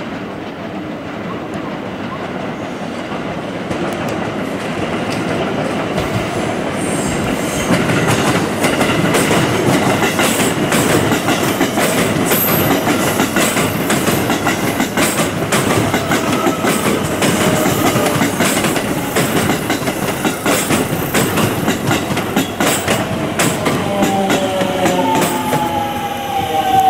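A JR West 281 series 'Haruka' electric train passing close by while crossing over through points. Its wheels clack over the rail joints and crossings again and again, and it grows louder over the first several seconds as it draws near. Near the end a set of falling tones comes in over the clatter.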